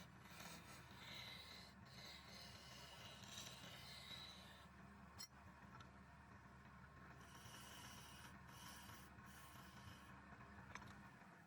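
Wood lathe running with a steady low hum while a turning tool scrapes against the spinning wood in rasping stretches, with a single sharp click midway.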